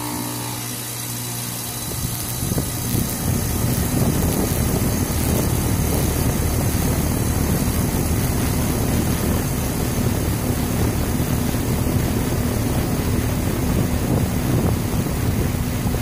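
Outdoor condensing unit of a 2016 Goodman 5-ton air conditioner starting up. A steady hum, with the condenser fan spinning up over the first few seconds into a steady rush of air.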